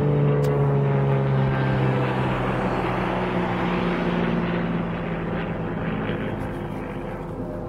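Single-engine light aircraft's propeller engine droning overhead, its pitch sliding slowly down and the sound fading as the plane draws away.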